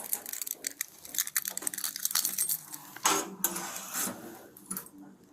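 Metal handcuffs clinking and rattling with a run of quick sharp clicks as they are fastened on a person's wrists behind his back, with a denser clatter about three seconds in.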